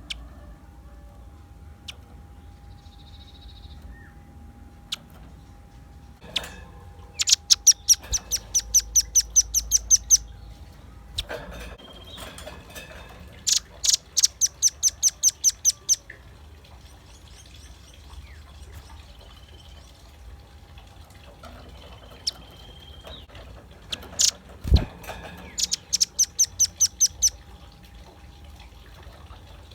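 Velvet-fronted nuthatch calling in three bouts of rapid, high, evenly repeated chip notes, about five notes a second, each bout lasting two to three seconds. A single sharp thump sounds a little before the last bout.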